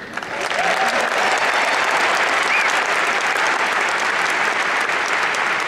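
Large audience applauding, a dense steady clapping that swells in right away and holds.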